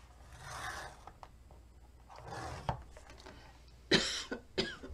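A scoring tool drawn along the groove of a score board, creasing cardstock in a soft scratchy stroke, followed by a cough about four seconds in.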